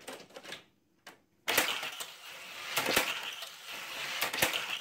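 Johnny Lightning die-cast toy cars launched and running on a plastic race track: a sudden loud clack about a second and a half in, then a continuous rattling rush of the cars going around the curve, with sharp clicks now and then.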